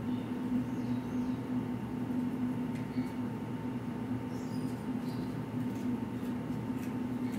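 A steady low machine hum, with a few faint, short, high-pitched squeaks scattered through it.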